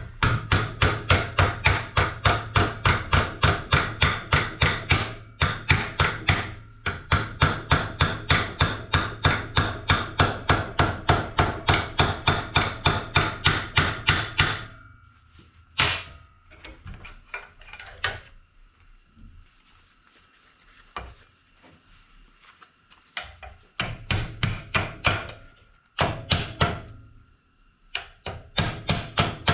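Steel being hammered in rapid, even blows, about five a second, for roughly fourteen seconds, with two short pauses. After that come a few single blows and three short runs of blows near the end.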